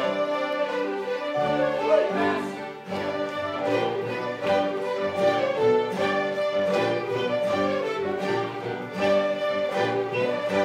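Large ensemble of fiddles playing a tune together, with a steady rhythm.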